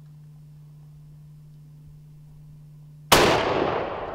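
A single loud gunshot near the end, with a long echo trailing off over more than a second. Before it there is only a faint steady low hum.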